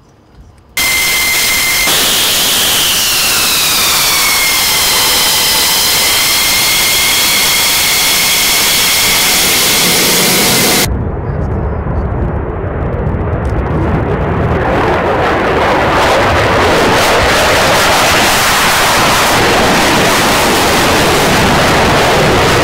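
Loud jet noise from a Thunderbird F-16: first a high engine whine whose pitch slides down a little and then holds. About eleven seconds in it cuts abruptly to the deeper, rumbling noise of the jet taking off and climbing away, which builds toward the end.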